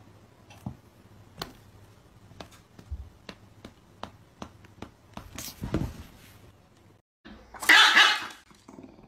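A string of light taps and soft slaps, a few a second at times, as two cats spar with their paws. After a brief dead gap, a loud harsh burst of about a second comes near the end.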